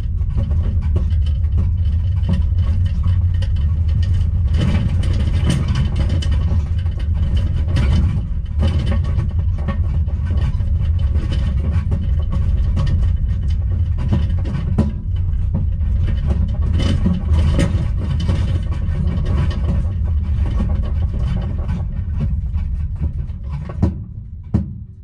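Towed caravan on the move, heard from inside its closed microwave: a steady low road rumble with frequent knocks and rattles, dropping away near the end.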